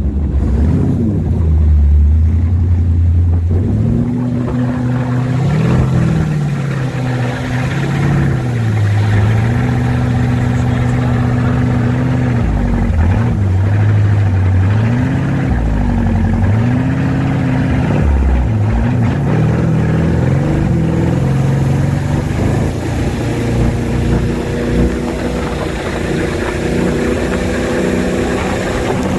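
Engine of a 1994 Brendella ski boat running, its pitch rising and falling several times as the throttle is opened and eased back.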